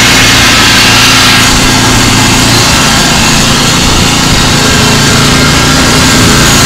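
Small engine of a garden-tractor-based halftrack running steadily and loud, heard close up from the driver's seat.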